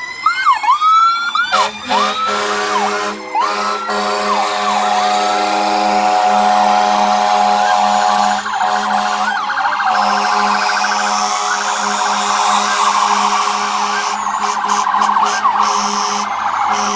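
Fire truck sirens sounding, first in short repeated whooping sweeps for the first few seconds, then as a dense mix of steady tones as more trucks pass, over a steady low engine hum.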